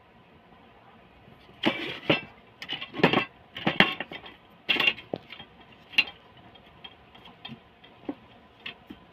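Wooden activity cube toy being handled: its wooden pieces clack and rattle in a run of loud knocks from about two to five seconds in, then lighter scattered taps.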